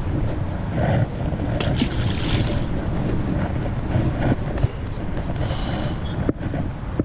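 Wind buffeting the microphone: a loud, uneven low rumble that rises and falls in gusts, with brief rustling about two seconds in.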